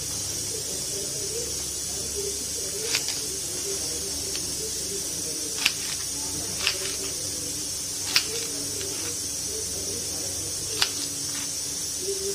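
Kitchen knife slicing okra on a wooden cutting board: about five sharp taps of the blade striking the board, irregularly spaced a second or more apart, over a steady hiss.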